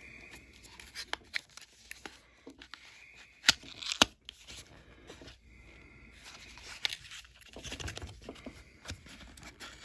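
A cardboard trading-card hanger box being opened by hand: tearing and crinkling of the packaging, with two sharp snaps about three and a half and four seconds in.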